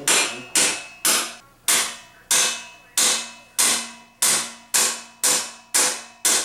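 A hammer striking metal parts of a BMX bike during assembly: about a dozen sharp, evenly spaced blows, roughly two a second, each ringing briefly.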